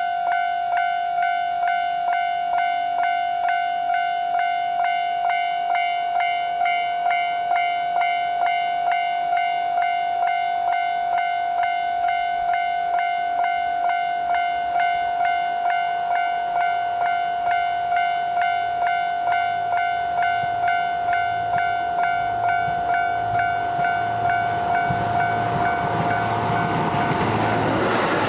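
Japanese level-crossing warning bell ringing at a steady, even beat of about two strikes a second. In the last few seconds the rumble of the approaching JR Hokkaido H100 (DECMO) diesel-electric railcar swells up and drowns it out.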